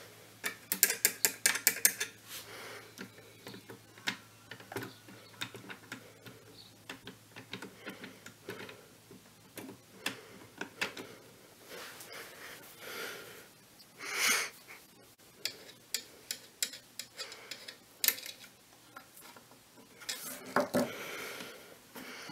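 The Webster-Chicago 346 record changer's mechanism clicking and ratcheting as its parts move. A fast run of clicks comes near the start, then scattered clicks, over a faint low hum that fades about halfway.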